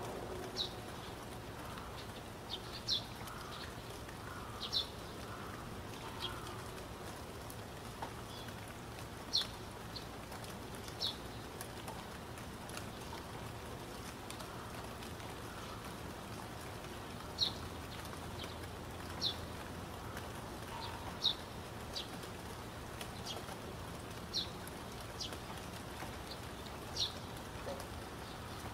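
Ambient nature sound bed: a steady rain-like hiss with short, high bird chirps every second or two.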